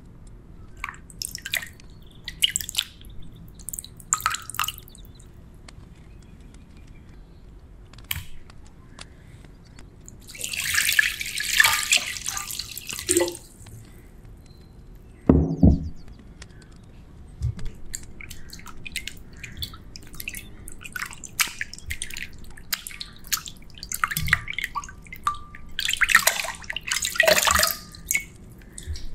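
Water dripping and splashing as raw chicken breasts are handled and rinsed in a glass bowl of water, with a rush of poured water about a third of the way in and a louder splash near the end as pieces are lifted out.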